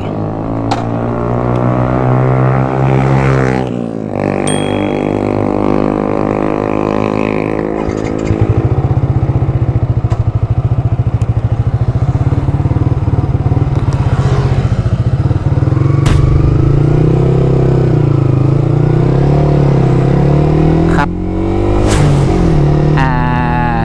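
Yamaha YZF-R15 sport motorcycle engine running while the bike stands still, revved up in pitch a few seconds in and again near the end, idling unevenly in between.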